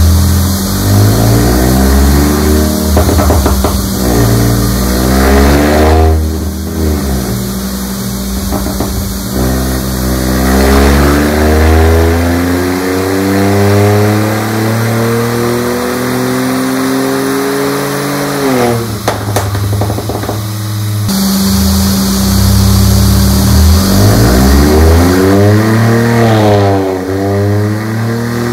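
Proton X50's 1.5-litre turbocharged three-cylinder engine revved repeatedly through its quad-tip exhaust, rising and falling in several blips. One long climb to high revs in the middle drops away sharply, with pops and crackles on the overrun from a pop-and-bang ECU remap.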